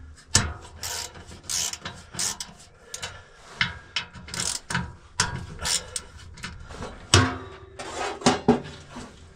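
Ratchet wrench clicking and a long socket extension scraping and knocking against the inside of a Caterpillar 14G grader's sheet-metal air cleaner housing in irregular bursts, as the nuts holding the old filter assembly are worked loose; the loudest knock comes about seven seconds in.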